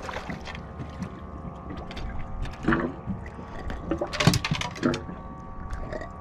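Water lapping against a boat hull, with scattered knocks and rustles as a small yellowtail snapper and its line are handled over the stern. A sharp knock a little after four seconds in is the loudest sound, and a faint steady hum runs underneath.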